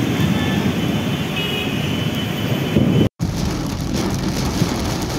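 Traffic on a wet road in heavy rain: a steady hiss of rain and tyre spray over a low rumble of vehicles. The sound drops out for a split second about three seconds in, then the hiss carries on.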